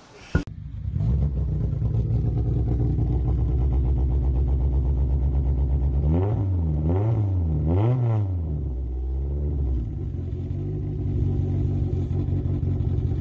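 Honda Civic's D-series four-cylinder idling through a side-exit exhaust, blipped three times in quick succession about six seconds in, then settling back to idle.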